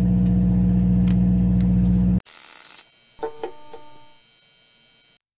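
Steady low drone of the fishing boat's engine, cut off abruptly about two seconds in. A logo sting follows: a short whoosh, then a few chiming notes that fade away.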